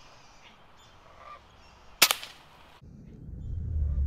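A single sharp crack about halfway in with a short fading tail, typical of a scoped air rifle being fired, then a low rumble of wind or handling noise that builds near the end.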